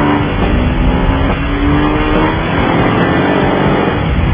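Ducati 749R sport bike's L-twin engine revving hard, its note dropping back about a second in and then climbing again as it pulls.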